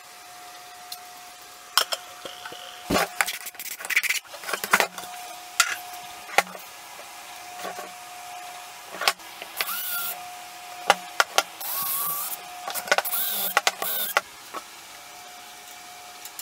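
Cordless drill boring into a cured cedar-and-epoxy-resin bowl blank, running in several short bursts in the second half with its motor whine rising and falling. Before that, a few sharp knocks as the blank is handled on the bench.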